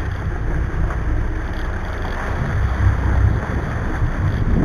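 Wind rumbling on the microphone over water rushing along the hull of a sportfishing boat under way, a steady, gusty noise.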